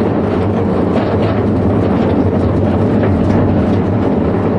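A long train of steel narrow-gauge tipper skips rolling along the track: a steady rumble with the wagons rattling.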